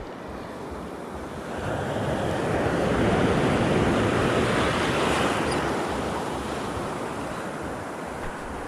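Sea surf washing in around the shallows: a wave's rush that builds for a couple of seconds, holds, then slowly fades, with wind on the microphone.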